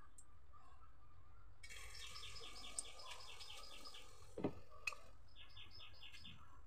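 A bird calling faintly in two runs of quick, evenly spaced high chirps, about five a second, the first from about two seconds in and a shorter one near the end. A single soft knock about four and a half seconds in.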